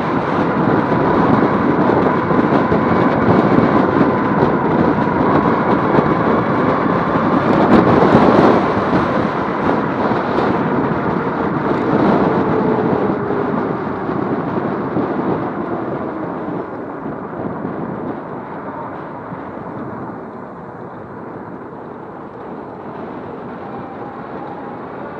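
Wind rushing over the microphone, with tyre and road noise, while riding a Romeo Ultra 2 electric bike towing a trailer. The rush fades gradually over the second half.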